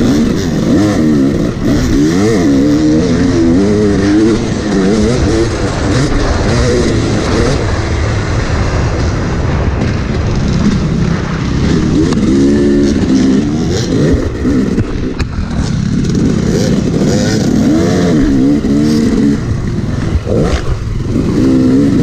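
Dirt bike engine heard from on board while the bike is ridden hard, its pitch climbing and dropping over and over with throttle and gear changes. Steady wind and rumble noise lies under the engine.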